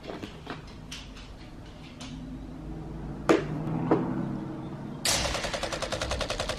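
A handful of sharp clicks spread over the first four seconds, the loudest about three seconds in. From about five seconds in comes a fast, even rattle of ticks, about ten a second.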